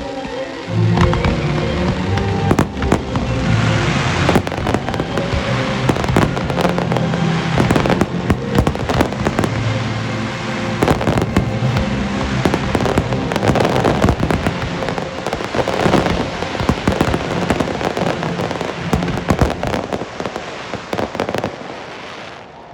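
Fireworks display going off: a dense run of bangs and crackling bursts over music. It starts about a second in and dies away near the end.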